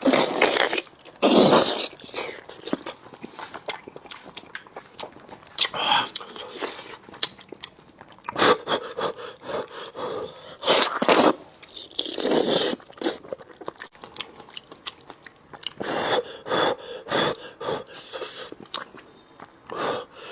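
A person eating hot braised pork knuckle skin close to the microphone: wet chewing, smacking and sucking mouth sounds, with a few louder slurps or breaths.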